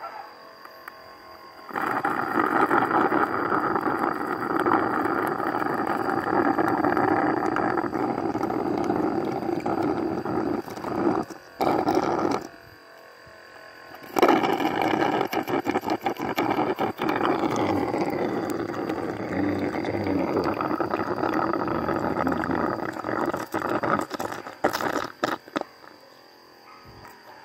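Honey and air being sucked through a metal tube out of stingless bee honey pots, a steady rushing suction noise from the pump. It starts about two seconds in, cuts out twice briefly around the middle and again shortly before the end.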